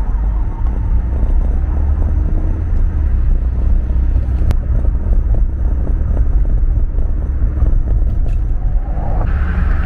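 Car cabin road noise while driving: a steady low rumble of engine and tyres, with a faint click about halfway through. A louder hiss comes in near the end.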